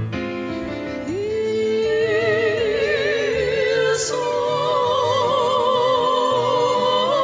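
A woman singing in an operatic style over keyboard accompaniment. About a second in, her voice slides up into a long held note with wide vibrato, then moves to a second held note.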